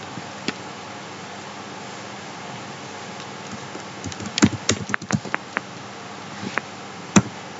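Steady hiss from the recording microphone, with scattered sharp clicks from working a computer mouse. There is one click shortly after the start, a quick run of about eight clicks between about four and five and a half seconds in, and single clicks near the end.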